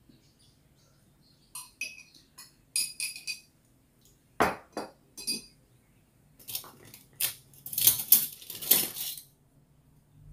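Metal spoon clinking against a ceramic coffee mug a few times, then a couple of sharp knocks about halfway and a few seconds of cutlery and dish clatter in the second half.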